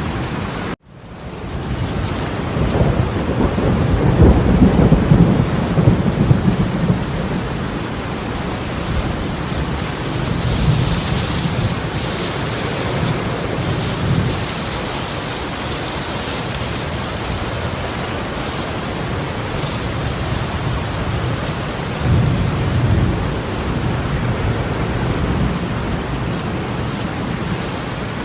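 Torrential rain pouring steadily, with deep rumbling swells a few seconds in and again near the end. The sound cuts out briefly about a second in, then comes back.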